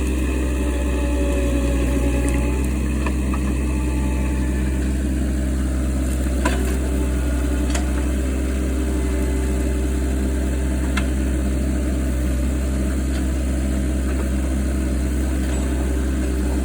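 Engine running steadily at a constant speed, with a few faint knocks about six, eight and eleven seconds in.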